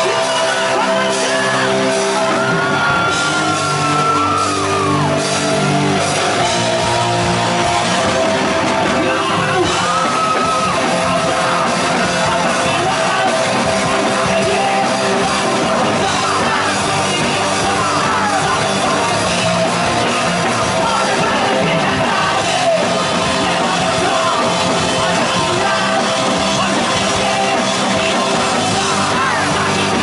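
Live rock band playing loud, with a male vocalist singing and shouting into a microphone over electric guitar and drums.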